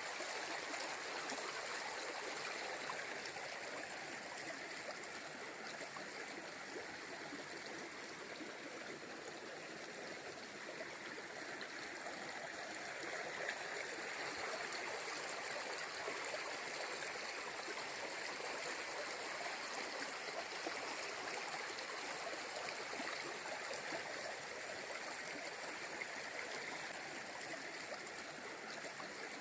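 Shallow river water flowing and gurgling over rocks in a steady rush, with no breaks.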